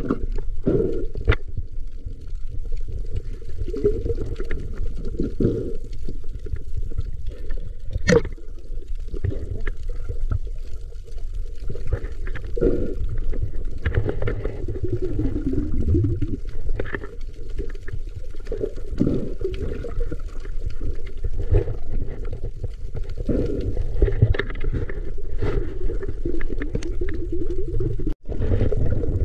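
Muffled underwater sound from a camera below the surface while spearfishing: low rumbling water noise with bubbling and gurgling, and scattered sharp clicks, the sharpest about eight seconds in.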